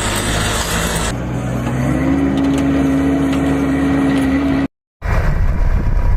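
Motor vehicle engine and road noise across spliced clips; about two seconds in an engine note rises in pitch and then holds steady.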